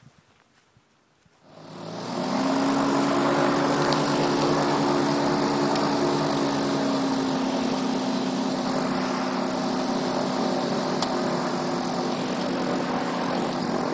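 RAF 2000 gyroplane's Subaru flat-four engine and pusher propeller starting about a second and a half in, then running steadily at a fast idle. Its pitch eases slightly lower as the revs settle after the start.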